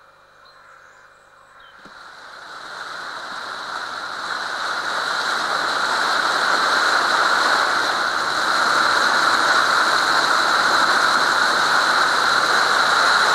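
Steady rushing of water and wind around a boat under way on open sea, building up about two seconds in from a faint quiet stretch and then holding steady and loud.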